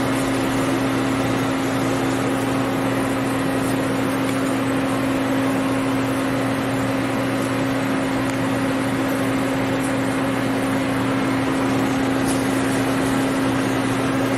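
Doosan Puma 5100LB CNC lathe running with its spindle and chuck spinning, giving a steady hum with a constant tone over even machine noise.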